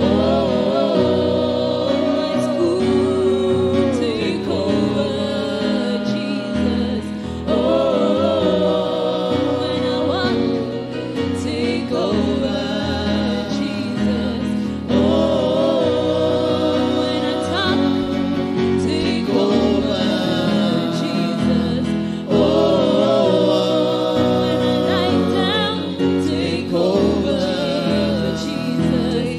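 Gospel worship song: a man and a woman singing with long held, wavering notes over electric keyboard accompaniment with a low, stepping bass line.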